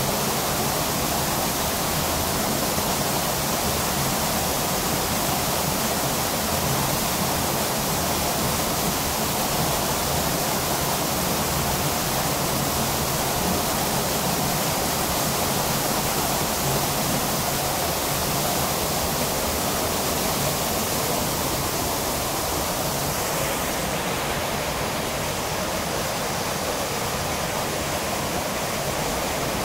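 Cave waterfall running high after heavy rain, a steady rush of water pouring over a rock ledge into a pool. About 23 seconds in, the rush thins a little in its upper range.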